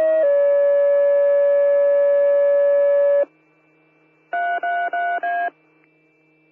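Fire dispatch two-tone page over the radio: a tone that steps down about a quarter second in to a lower tone held for about three seconds. After a short gap come four short alert beeps, the last one higher, the tone-out that alerts the stations before the dispatcher announces the call.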